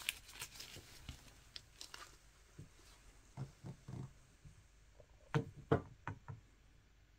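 Soft scattered taps and clicks of gloved hands and long acrylic nails handling a glass gel polish bottle. Two louder knocks come close together about five and a half seconds in.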